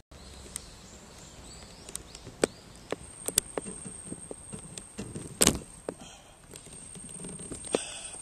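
Scattered knocks, scrapes and handling rustle as a person clambers up onto a metal horizontal bar, with one heavy thump about five and a half seconds in. A thin, steady high tone sounds through the second half.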